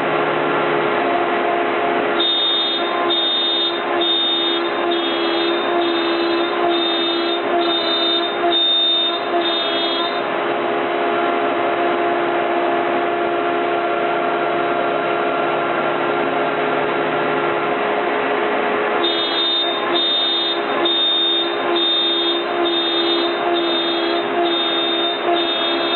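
CNC router cutting MDF with a 1/4-inch bit: loud, steady running of the router with a constant hum. A short high-pitched tone repeats about once a second, from about two seconds in to about ten, and again from about nineteen seconds on.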